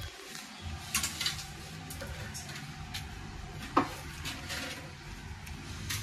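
A few light clicks and taps, the loudest about four seconds in, from a hand plugging a charger cable into a MacBook Pro and pressing its keys.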